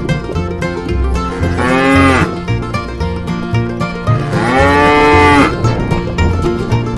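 Cow mooing twice, each call rising and then falling in pitch, the second longer than the first, over background bluegrass music.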